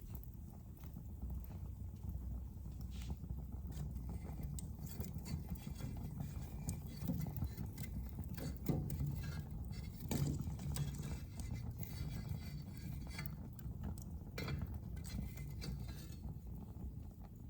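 Wood fire in a fireplace crackling: a steady low rumble of flames with irregular small crackles and a few louder pops in the middle.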